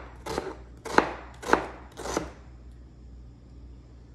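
Chef's knife thinly slicing an onion on a plastic cutting board: four cuts about two-thirds of a second apart, each ending in a sharp tap of the blade on the board, then a pause.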